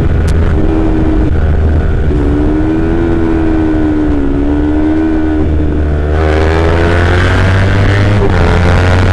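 Kawasaki Z250's parallel-twin engine through a Prospeed aftermarket exhaust, heard from the rider's seat while riding at steady revs. About six seconds in, the note gets louder and rises in pitch as the throttle opens.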